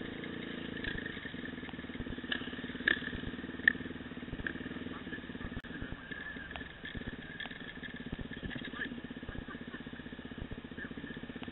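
Dirt bike engine running steadily while riding a rough trail, with scattered sharp knocks and rattles from bumps; two louder knocks come a few seconds in.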